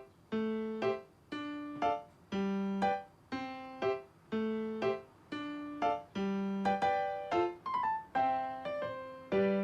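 Background music: a simple, light tune of single piano-like notes at about one note a second.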